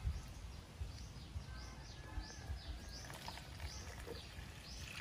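A bird calling over and over: short chirps that slide downward, about two a second, over a low rumble of outdoor noise.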